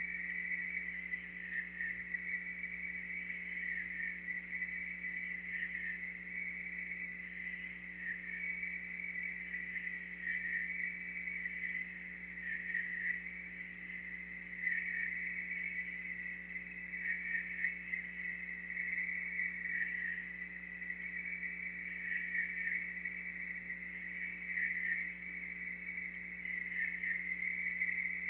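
A dense chorus of night insects chirping continuously, its pulsing rising and falling in strength, over a steady low hum.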